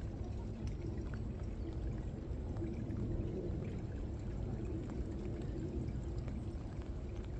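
Steady low rush of running water, with scattered light raindrop taps.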